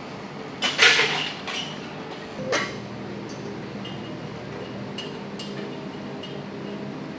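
Steel barbell and weight plates clanking in a gym: one loud metallic clank with a ringing tail about a second in, two smaller knocks soon after, then a few light clinks over a steady background hum.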